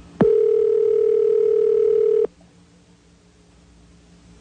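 Telephone ringback tone over a phone line: a click, then one steady ring of about two seconds that cuts off sharply, leaving faint line hiss. It is the sign that the dialed call is ringing at the far end and has not yet been answered.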